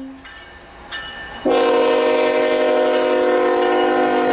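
Deep-toned multi-chime air horn of a CN GE Evolution Series (GEVO) diesel locomotive sounding for a grade crossing: one blast dies away at the start, a short blast follows about a second in, then a long blast from about a second and a half holds on loudly.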